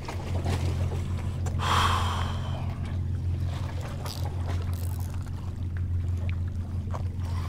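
Steady low engine drone, with a brief breathy rush of noise about two seconds in and a few faint clicks.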